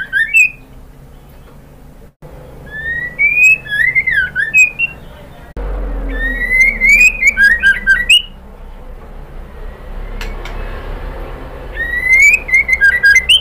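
Female white-rumped shama (murai batu) calling in short phrases a few seconds apart, each a rising whistle breaking into quick falling notes and sharp high ticks: the female's call used to stir male shamas into song.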